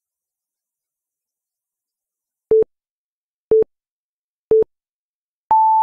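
Countdown timer beeps: three short, low beeps a second apart, then a longer, higher beep near the end marking that the countdown has run out.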